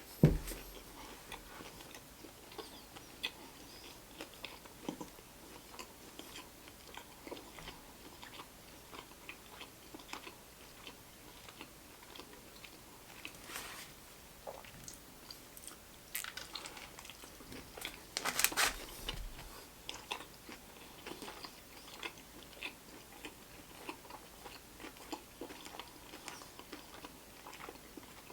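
A person biting and chewing a fried chicken sandwich close to the microphone. A loud bite comes right at the start, then steady chewing with small crunches and mouth clicks, and a louder stretch of crunching about two-thirds of the way through.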